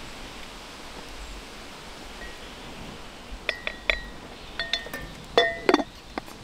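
Ceramic and glass coffee things clinking as they are handled: after a quiet stretch of faint outdoor hiss, a run of sharp clinks with brief ringing starts about three and a half seconds in, the loudest near the end.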